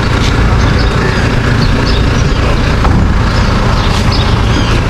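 A large motor vehicle's engine running with a steady low rumble.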